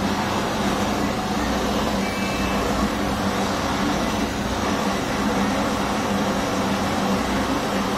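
Handheld gas blowtorch flame hissing steadily at an even level, with a low hum under it.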